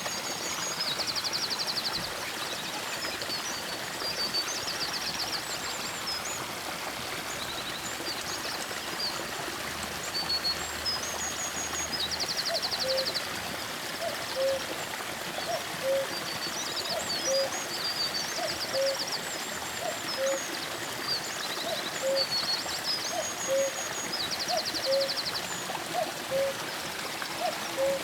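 Several wild birds singing in a forest, with quick high trills and short whistled phrases over a steady hiss. From about twelve seconds in, a short low note repeats regularly, about every second and a half.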